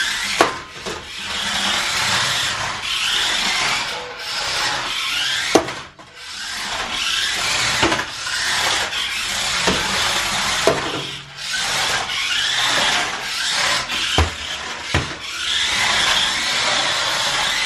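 Small battery RC drift car being driven: its electric motor whirs and its tyres scrub and slide on a hard floor in long passes, broken by brief pauses and a few sharp knocks.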